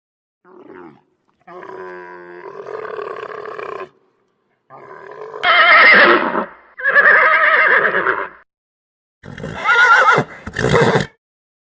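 A horse whinnying several times, each call with a shaky, wavering pitch, the loudest about halfway through and near the end.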